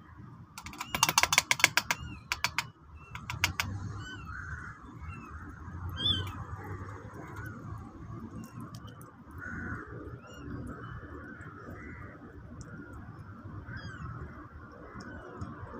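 A cat eating raw minced meat close to the microphone: a quick run of loud, sharp wet smacking clicks about half a second in, and a shorter run a few seconds later. Small birds chirp in the background.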